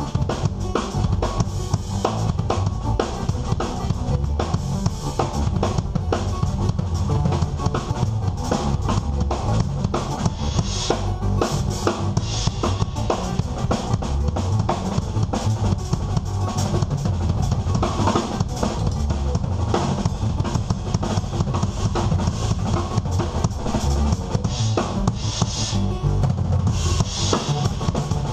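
Live band playing: an acoustic drum kit beats out a fast, dense pattern of kick, snare and cymbals over a deep bass line and keyboards.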